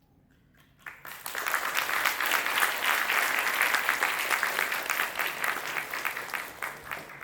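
Audience applauding: it starts about a second in, stays strong, and fades near the end.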